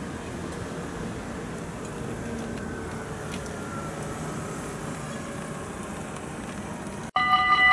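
Steady distant traffic noise with a faint passing vehicle whose pitch falls slowly. Near the end it cuts suddenly to a railway level-crossing warning bell ringing loudly.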